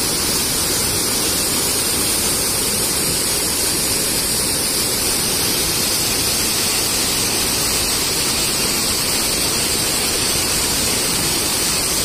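The Probiy waterfall on the Prut river: water rushing steadily through a rock chute and over stone ledges, an even, unbroken rush of falling water.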